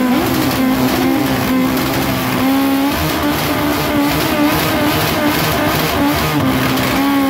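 Motorcycle engine held at high revs during a burnout, the rear tyre spinning on the tarmac. The engine note holds steady, then steps up a little and wavers about three seconds in.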